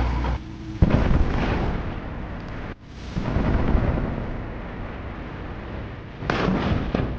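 Artillery fire from a truck-mounted howitzer: a sharp gun blast about a second in, then a long rumbling boom of shells exploding on the range that slowly fades, and another sudden blast near the end.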